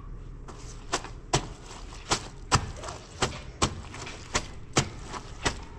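Laundry being scrubbed by hand, the soapy wet cloth rubbed together in quick back-and-forth strokes that give sharp slaps in pairs, a little over two a second, starting about a second in.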